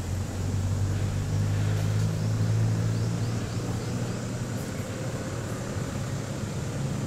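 A motor vehicle's engine running as a steady low hum. It grows louder about two seconds in and eases off after.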